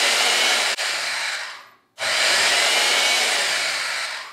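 Bauer portable band saw's motor running free with no cut. It is switched off at the power strip about a second and a half in and winds down, comes back on abruptly two seconds in, then is switched off again near the end and winds down.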